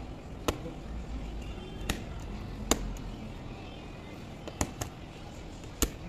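Sharp little clicks and taps of a small screwdriver working screws on a laptop's metal keyboard plate, about six of them at uneven intervals, over a low steady hum.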